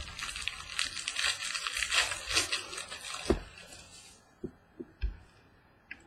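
Crinkly packaging being torn open and handled for about three seconds, then a few soft taps and clicks as it is set down.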